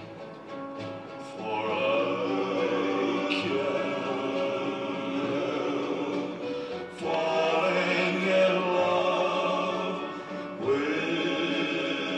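Music: a choir singing long held notes, swelling about one and a half seconds in and again near the middle.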